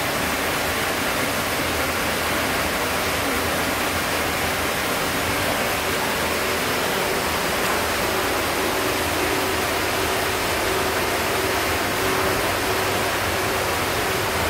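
Steady rush of water pouring into a flood test tank, flooding a sandbagged doorway.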